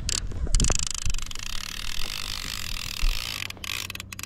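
Multiplier fishing reel's ratchet buzzing rapidly under the pull of a hooked fish on a hard-bent rod, with a couple of dull knocks.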